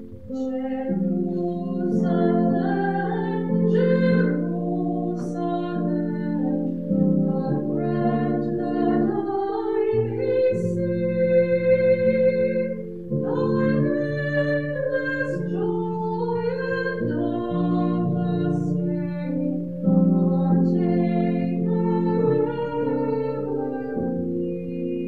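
A hymn sung by a voice over sustained keyboard chords that change about once a second.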